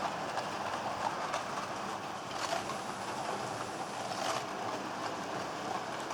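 Model train running along model railway track: a steady rolling rattle of wheels and motor, with a few louder clicks.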